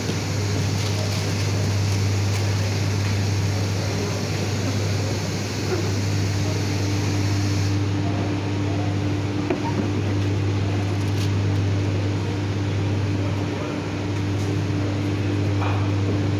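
Steady low hum of factory machinery, with a second, higher steady tone joining about six seconds in and a few faint clicks over it.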